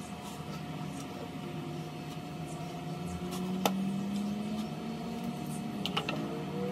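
Workbench handling of a cordless drill: a steady low hum, a sharp click a little past halfway, a few lighter clicks near the end, and the drill motor spinning up briefly.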